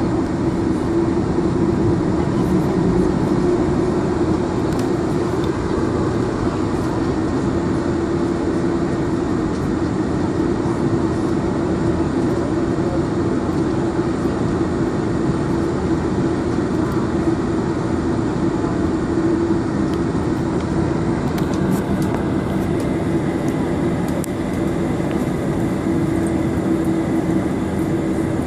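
Steady cabin noise in a Boeing 747-400 taxiing: the engines and airflow give an even hum with one constant droning tone.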